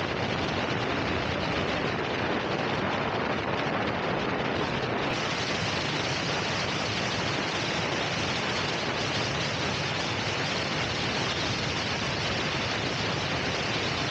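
Steady rushing wind noise on the microphone of a moving rider, with no engine note or other distinct sound standing out.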